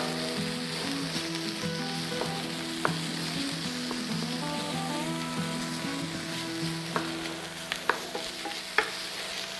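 Diced bacon sizzling as it sears in a hot, dry nonstick frying pan while it is stirred with a wooden spatula. A few light knocks of the spatula on the pan come through the steady sizzle.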